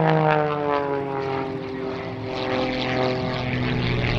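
MXS aerobatic plane's piston engine and propeller droning, the pitch sliding steadily down over the first three seconds and then holding lower.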